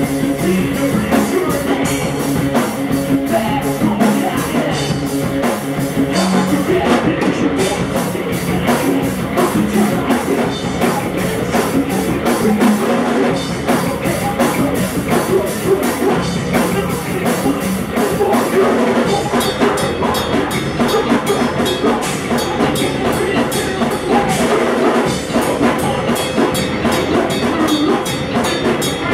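A rock-metal band playing live: electric guitar, bass guitar, drum kit and hand-played congas, with a singer's voice. About two-thirds of the way in, the drumming gets busier, with faster cymbal strokes.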